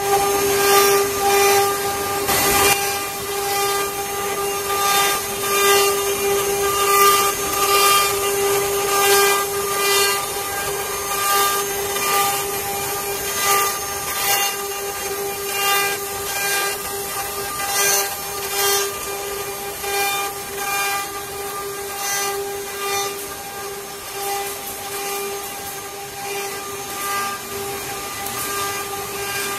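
Eight-spindle CNC wood carving router running, its spindles cutting relief patterns into wooden panels: a steady high whine with overtones above it, and a rasping cutting noise that swells and fades over and over.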